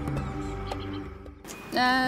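Soft background music that fades out about a second and a half in; a woman's voice starts on a held note just before the end.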